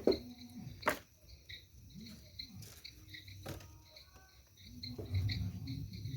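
Insects chirping in short, repeated high pulses, with a few sharp knocks.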